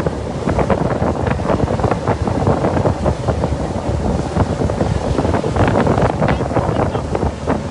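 Wind buffeting the microphone aboard a moving boat: a loud, continuous low rumble with frequent gusts.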